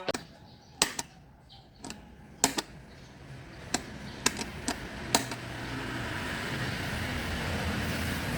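A series of sharp, separate clicks and knocks, about eight in five seconds, like small hard objects being handled, then a steady noise that swells from about three seconds in and holds.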